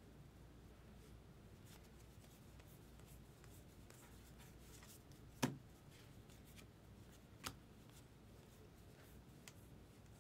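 Quiet handling of baseball trading cards: faint rustling and sliding. A sharp tap comes about five and a half seconds in, a smaller one about two seconds later, and a faint click near the end.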